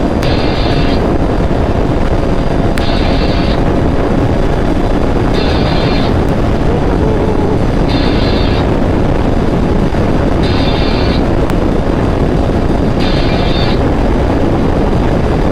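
2006 Suzuki GSX-R 600's inline-four engine running at a steady cruise, with loud wind rush over the microphone at highway speed. A brighter hiss swells briefly about every two and a half seconds.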